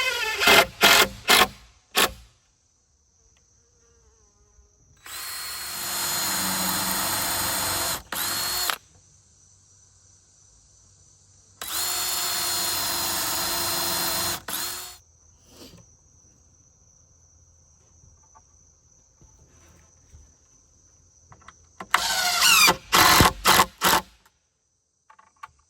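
Cordless drill running in short trigger bursts that spin up and stop, then two steady runs of about three seconds each, then another cluster of short bursts near the end.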